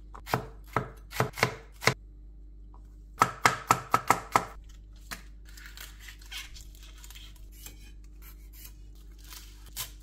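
Knife chopping on a cutting board: a handful of separate strokes, then a quick run of about seven, then quieter light cuts and two more strokes near the end.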